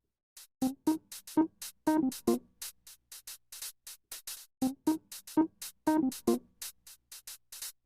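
Electronic background music: a programmed drum beat of quick hi-hat ticks, about four a second, with pitched drum hits among them.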